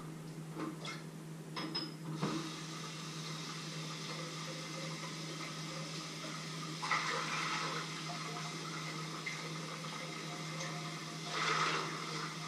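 A few knocks, then water from a kitchen tap starts about two seconds in and runs steadily into the sink, growing louder twice, near the middle and near the end. A steady low hum runs underneath.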